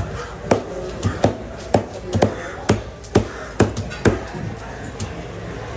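Heavy knife chopping yellow trevally into chunks on a wooden block: a quick series of sharp thuds, roughly two or three a second, stopping about four seconds in.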